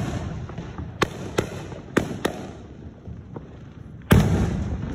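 Aerial fireworks shells bursting: four sharp bangs in the first two and a half seconds, then the loudest bang about four seconds in, whose boom dies away over the following second.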